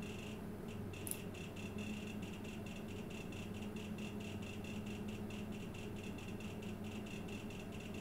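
HDD Clicker board imitating hard-disk seek noise: rapid, irregular clicking that starts about half a second in, following the drive-activity light while a disk defragmentation runs. A steady low hum sits underneath.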